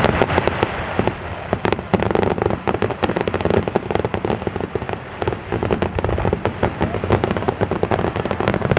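Aerial fireworks bursting: a dense, continuous run of sharp cracks and pops, many a second, from glittering star shells.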